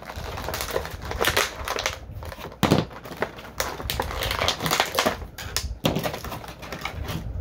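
Plastic action-figure packaging crinkling and crackling in irregular bursts as the figure and its accessories are unpacked, with a louder crunch about two and a half seconds in.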